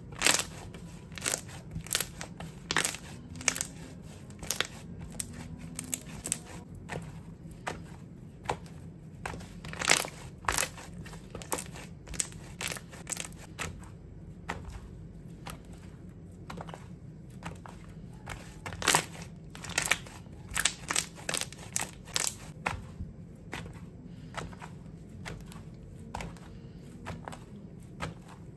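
Thick white slime being stretched, folded and pressed by hand, giving irregular sharp crackling pops, sometimes single and sometimes in quick clusters, with quieter spells between.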